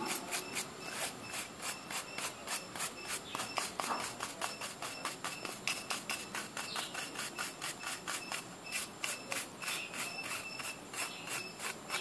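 A cuttlebone being rubbed clean of its powdery surface dust with quick back-and-forth strokes, about four a second, each a short dry scrape.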